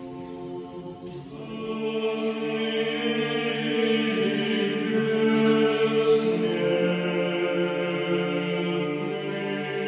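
A choir singing slow, long-held chords without instruments, getting louder about two seconds in.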